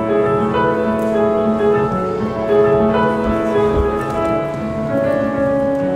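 Slow instrumental music: a melody of held notes moving in steps, with no voice.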